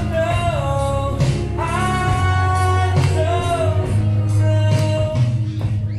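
Music: a singer holding long notes that slide between pitches, over a band with a steady bass line and guitar.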